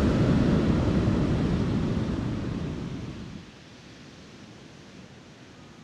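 Steady rushing beach ambience, wind buffeting the microphone over surf, heaviest in the low rumble. It fades down sharply a little over three seconds in.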